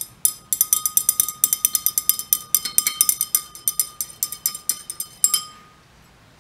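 A stir rod clinking rapidly against the inside of a glass beaker while stirring a suspension, several taps a second, each making the beaker ring. The clinking stops near the end and the ringing fades out.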